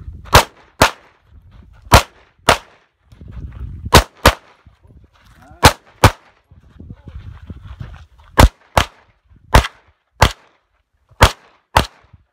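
Semi-automatic pistol fired in a stage run, fourteen sharp shots in seven quick pairs. Each pair is about half a second apart, with a second or so between pairs as the shooter moves from target to target: double taps, two rounds per target.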